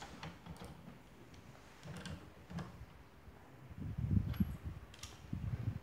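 Hand ratchet turning the forcing screw of a strut coil spring compressor to compress the spring, giving scattered sharp clicks with a few low knocks of the tool against the spring and strut.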